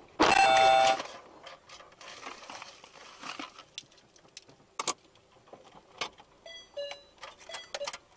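A car horn blast of under a second near the start, followed by scattered clicks and, near the end, a quick run of short electronic beeps.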